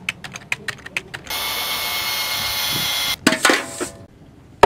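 A few quick computer-keyboard key clicks, then a steady mechanical whirr for about two seconds that stops abruptly, then a couple of ringing clinks of ceramic mugs on a desk.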